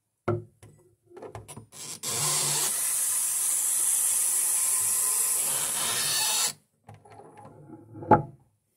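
Bathroom faucet running water into a glass bottle for about four and a half seconds, then shut off suddenly. A few light clinks of the bottle come before it, and a single sharp knock near the end.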